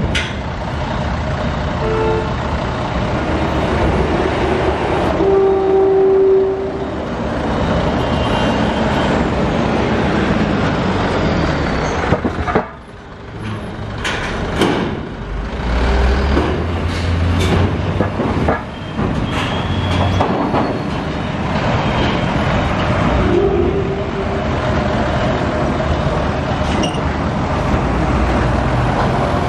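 Heavy diesel cargo trucks running as they drive over the steel ramp onto a roll-on/roll-off ferry, with a series of sharp metallic clanks near the middle and a few short horn toots.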